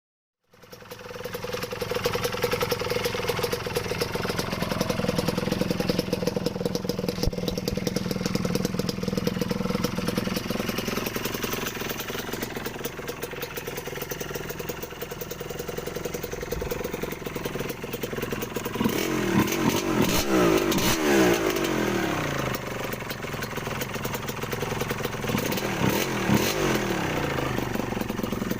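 Kawasaki KMX125's two-stroke single-cylinder engine idling steadily, blipped up and back down in a quick run of revs about two-thirds of the way through and again near the end.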